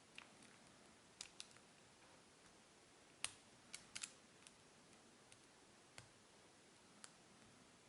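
Faint, scattered small metallic clicks of a lock pick and tension tool working the pin stacks of a Yale six-pin cylinder lock, about ten ticks in all, the loudest a little past three seconds in.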